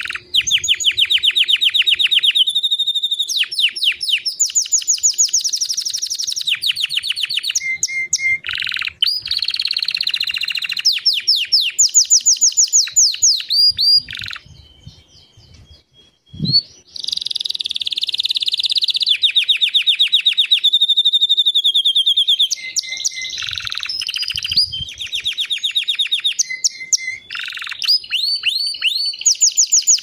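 White domestic canary singing: long phrases of fast, evenly repeated trills and rolling notes, changing pitch from phrase to phrase. About halfway through it stops for a couple of seconds, a single low thump is heard, and then the song starts again.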